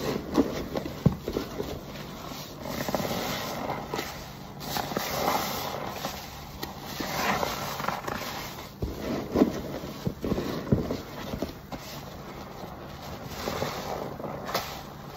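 Perforated car wash sponges soaked in thick laundry-detergent lather being squeezed and kneaded by gloved hands: wet squelching with crackling foam, coming in irregular swells with many small pops and clicks.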